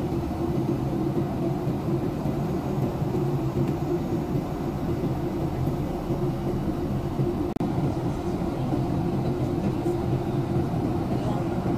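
Steady cabin drone of an airliner in cruise: engine and airflow noise with a low hum, heard from inside the cabin at a window seat. It drops out for an instant about seven and a half seconds in.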